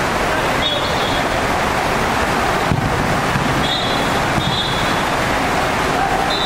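Steady, loud, echoing din of an indoor five-a-side football hall, with short high whistle blasts: one about a second in, two close together around four seconds, and one more at the end.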